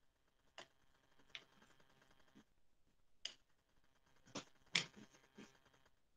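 Faint, scattered clicks and taps, about six, the loudest just before five seconds in, as a flat paintbrush dabs gold paint from a cardboard palette onto a raised relief figure.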